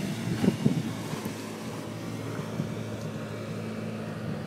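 Motorboat engine running with a steady low hum, over wind and water noise.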